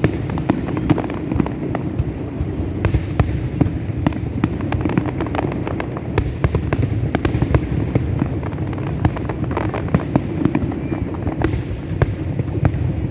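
Fireworks display: many shells bursting in quick succession, a dense run of sharp cracks and pops over a continuous low rumble.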